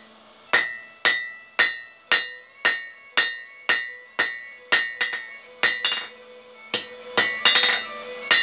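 Hand hammer striking a red-hot iron bar on an anvil, about two blows a second, each leaving a clear ringing note. Near the end comes a quick flurry of closer blows.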